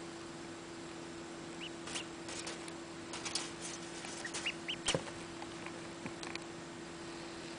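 Newly hatched Aylesbury duckling giving a few short, high peeps, most of them about four to five seconds in, among several light clicks and taps. A steady low hum runs underneath.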